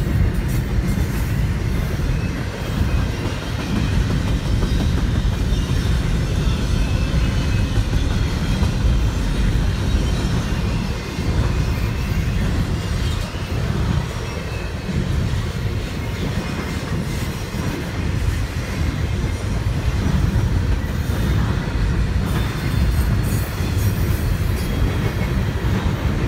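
Double-stack intermodal container cars of a long CSX freight train rolling past: a steady, loud rumble of wheels on rail, with scattered clicks.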